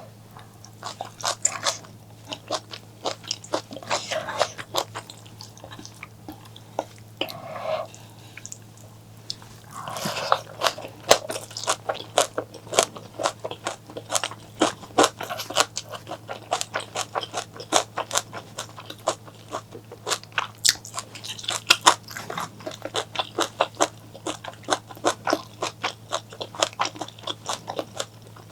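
Close-miked eating: crisp crunching and chewing, several sharp crunches a second, denser in the second half, with a few softer, wetter mouthfuls in between.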